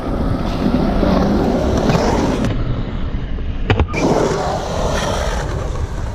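Skateboard wheels rolling and carving on a concrete bowl, a steady rumble, with one sharp clack a little under four seconds in.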